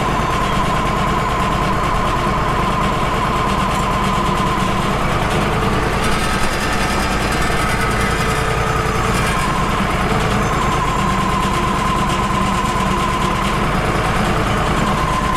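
Wood-Mizer LT35 HD band sawmill running steadily under its engine, the band blade giving a high whine as it makes a light skim cut through an eastern red cedar log. The whine shifts higher for a few seconds in the middle.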